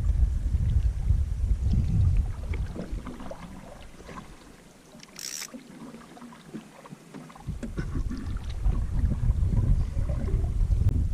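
Wind rumbling on the microphone over a canoe on a lake, with light scattered splashes and knocks of paddling. The rumble drops away for about three seconds in the middle, when a brief hiss sounds.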